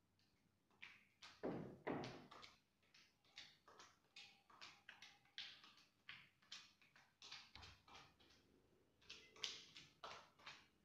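Sponge dabbing texture paint onto a wall: a string of short soft pats, uneven at about two to three a second, the strongest pair about one and a half to two seconds in.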